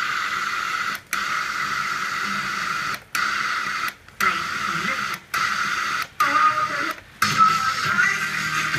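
Blaupunkt Köln car radio hissing with FM static through a mono speaker. A steady hiss is cut by short silences every second or two, with faint snatches of voice between, as the set steps between stations.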